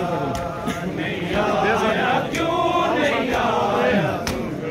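Men's voices chanting a Punjabi noha, a Shia lament, together in a drawn-out sung melody. A few sharp slaps break through now and then.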